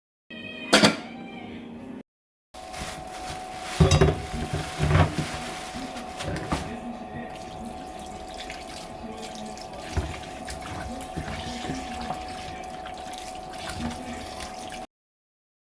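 Water running from a tap into a kitchen sink, with knocks and clatter of things being handled in it, loudest about four and five seconds in. The sound cuts off shortly before the end.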